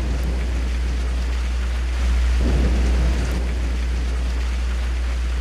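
Rain-and-thunder ambience: steady rain hiss over a deep, constant rumble that swells louder about two seconds in.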